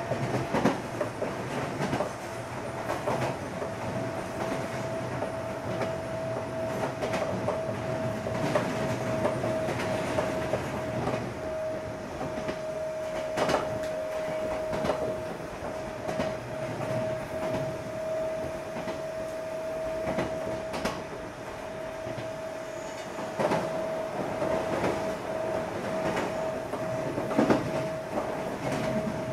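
Odakyu 8000 series electric train (car 8109, field-chopper control) running at speed on jointed rail. The wheels click over rail joints at uneven intervals, over a steady whine and a rumble.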